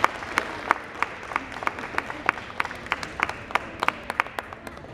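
An audience applauding lightly, with separate hand claps heard one by one, several a second and uneven, thinning a little near the end.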